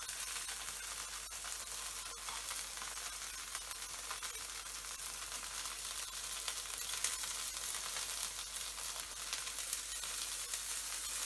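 A thin bánh xèo crêpe of rice-flour and turmeric batter with shrimp, sizzling in oil in a nonstick pan: a steady hiss scattered with small crackles.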